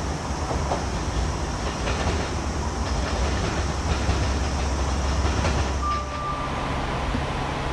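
Diesel train running on the station tracks, a steady low rumble with faint rail noise. About six seconds in the rumble drops away and a single chime note sounds.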